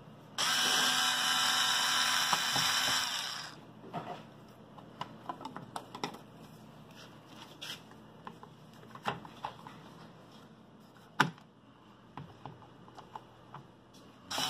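Bauer 4V lithium-ion cordless screwdriver motor whirring steadily for about three seconds as it backs a screw out of a light-switch cover plate. Then come a few light clicks and taps as the cover plate is handled, with one sharper click about three seconds before the end.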